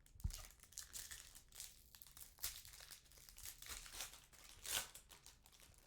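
Trading-card pack wrapper being torn open and crinkled by hand, a dense run of crackling with a sharp thump just after the start.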